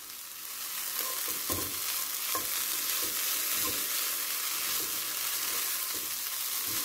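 Shredded chicken filling with onion and bell pepper sizzling in a hot nonstick frying pan, cooked almost dry, while a silicone spatula stirs and turns it in soft scraping strokes over a steady hiss.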